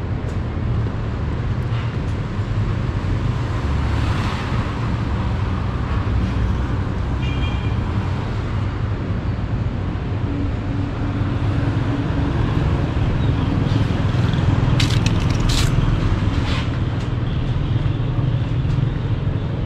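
Urban street ambience: a steady low rumble of city noise, with a few sharp clicks about fifteen seconds in.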